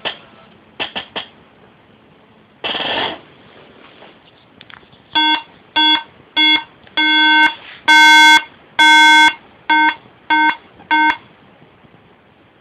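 A 2010 15-inch MacBook Pro (A1286) gives its SOS error beep: three short, three long, then three short buzzy tones. The uploader puts the fault down to a corrupted or damaged BIOS firmware chip. A few clicks and a short burst of noise come before the beeps.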